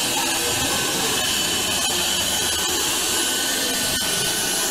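Suction-cup candy prize machine's vacuum pump running with a steady hiss as the cup grips a candy bag by suction and lifts it.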